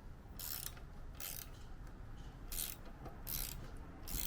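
Ratchet spanner being worked back and forth to undo a bolt, giving a short rasping run of clicks about five times, roughly one stroke a second.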